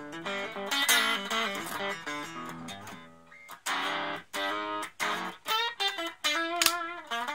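Electric guitar played through a Raizin Sound "60s Vintage Tweed" effects pedal: picked single notes and short phrases, with a brief lull about three seconds in.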